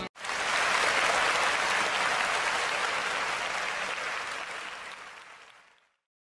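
Applause, a dense even clapping that sets in just after the start and fades out steadily over about six seconds.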